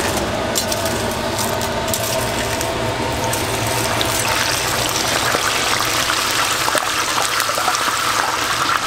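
Battered chicken deep-frying in a large pot of hot oil: a steady sizzle and bubbling, with a few light clacks of metal tongs early on.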